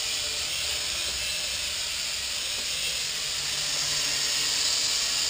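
Small quadcopter's propellers whirring steadily as it hovers in altitude hold: an even hiss with a faint hum beneath, a little louder in the second half.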